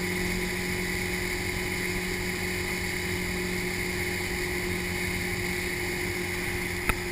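Motorboat engine running at a steady towing speed, a constant hum over the rushing of the wake and wind. A single sharp click sounds near the end.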